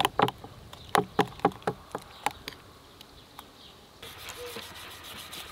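Wet squelching and clicking of fingers working a thick spice marinade paste in a glass bowl, a quick run of sharp smacks over the first couple of seconds that then thins out.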